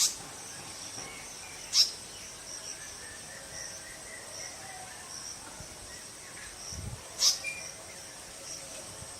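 Outdoor nature ambience: insects chirping steadily with a high continuous hum, faint distant bird song, and three short, sharp calls that are the loudest sounds, at the start, about two seconds in and near the seven-second mark.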